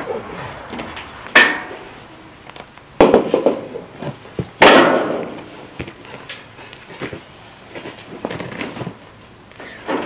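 Clanks and knocks of metal being handled on a corrugated steel sheet as a stovepipe thimble is set down on it: three sharp hits, about one and a half, three and four and a half seconds in, the last the loudest and ringing on briefly, with lighter taps between.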